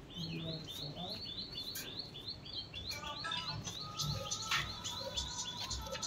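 Parakeet chirping: a fast series of short, high chirps, about five a second, for the first three seconds, then looser, more varied calls.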